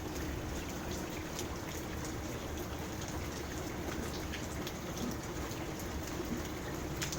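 Rain falling on a koi pond: a steady patter with many scattered, sharp drop ticks.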